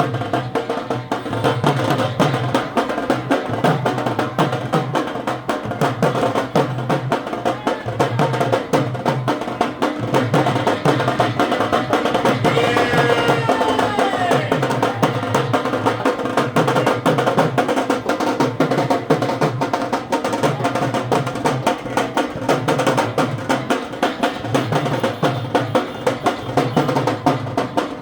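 Festival procession band playing: drums beat a fast, steady rhythm with a melody over it. A short wavering high note sounds about halfway through.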